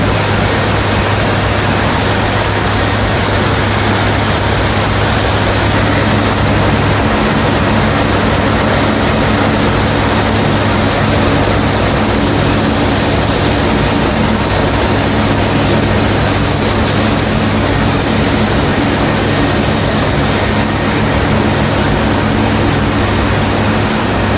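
Steady drone of a C-130's four turboprop engines heard inside the flight deck in flight: a loud, even rush of noise over a low hum. About six seconds in the sound shifts slightly in tone, as one cockpit recording gives way to another.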